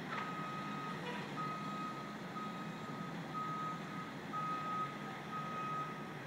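A truck's reversing alarm beeping on one steady tone, six beeps about a second apart, the sign of the truck backing up. A low steady hum runs underneath.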